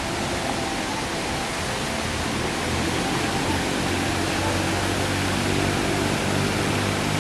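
Waterfall: steady rushing of falling water. About two and a half seconds in, a low steady hum comes in underneath.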